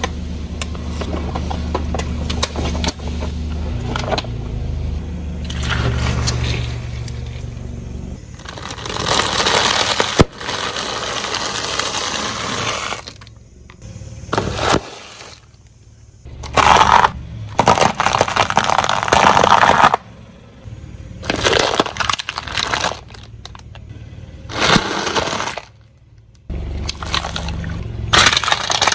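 A car engine running low and steady for the first several seconds, then a car tyre crushing objects: several loud bursts of crunching and cracking that start and stop abruptly.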